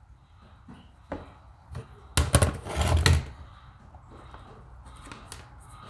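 A single knock, then about a second of loud clattering and rattling of hard objects being handled, with a few light clicks near the end.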